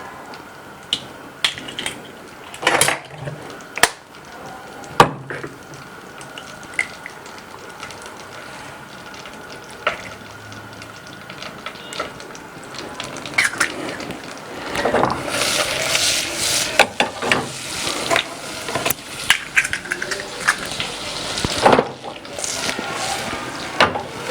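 Scattered sharp knocks and clicks of utensils against a bowl, then, from a bit past halfway, several seconds of quick, continuous beating of egg yolks in a bowl.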